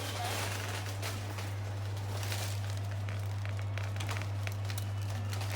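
A steady low hum with many light clicks and rustles scattered through it.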